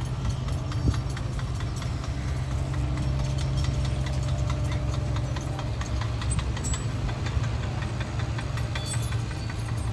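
Diesel engine of a heavy construction machine running steadily, with a run of quick metallic clicks and clanks through the middle.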